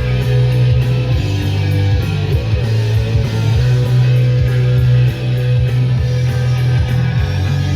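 Rock music with distorted electric guitar and a heavy bass line.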